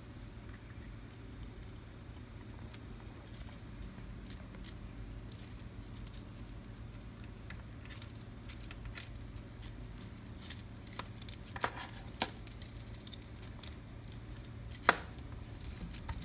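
A bunch of metal keys jangling and clinking in the keyhole of a steel safe as a monkey fumbles with them, in irregular spells of small metallic taps, with one sharper click near the end.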